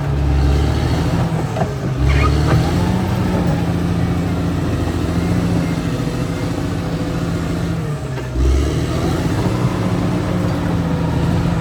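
Caterpillar D6R XL bulldozer's diesel engine working, its note rising and falling, with heavier low surges near the start, about two seconds in and about eight seconds in.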